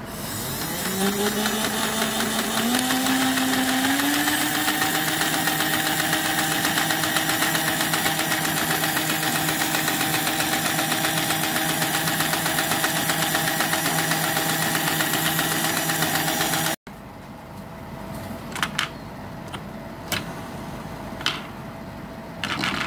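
Toy steam locomotive's small electric drive motor and gear train running with the wheels spinning free. It speeds up in a few steps as the newly added speed-adjuster knob is turned up, then holds a steady whine. It cuts off abruptly, followed by several light clicks of the plastic shell being handled.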